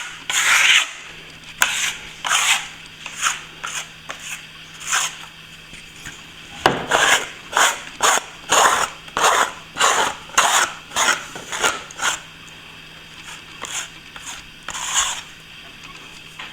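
A hand tool scraping back a plaster patch that is starting to firm up: a string of short rasping strokes, spaced out at first and coming about twice a second in the middle.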